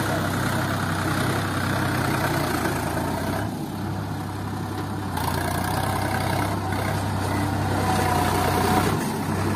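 Sonalika tractor's diesel engine running steadily at low revs as the tractor reverses slowly. The low engine note drops briefly about three and a half seconds in, then picks up again.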